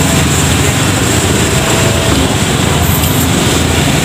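Steady rumble of road traffic, a continuous noisy hum with no distinct events.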